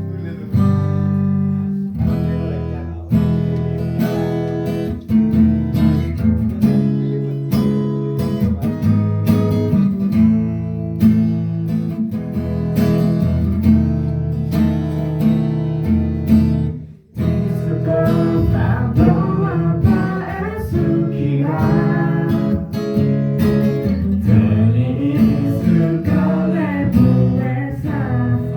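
Music on acoustic guitar, strummed, with a singing voice over it in the second half. It breaks off briefly about two-thirds of the way through.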